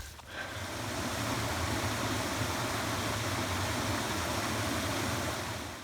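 Stream water rushing steadily, fading out near the end.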